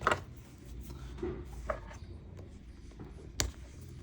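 Hands handling a smartphone and small repair parts on a bench: light rubbing with a few scattered taps and clicks, the sharpest click about three and a half seconds in.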